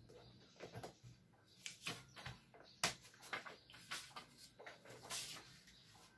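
Small clicks and knocks of a plastic clipboard case being handled on a desk, then a sheet of paper being pulled out and rustling as it is laid down, with one longer rustle about five seconds in.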